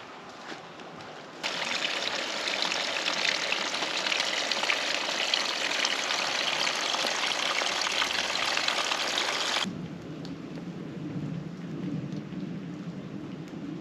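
Steady rain falling, a dense fine pattering hiss that starts abruptly about a second and a half in and cuts off just as abruptly about ten seconds in. A low steady rumble is left after it.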